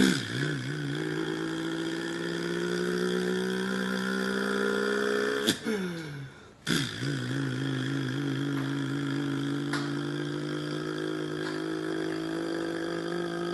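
A man imitating a running motor-vehicle engine with his voice: a long, buzzing drone that slowly rises in pitch. It breaks off for a quick breath about five and a half seconds in, then comes back as a second long, fairly steady drone.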